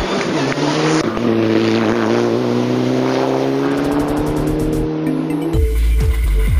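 Rally car engines under hard throttle, heard in a string of edited clips. One engine climbs steadily in revs for about four seconds, then an abrupt cut brings in a different car with a deep, rhythmic pulsing exhaust note.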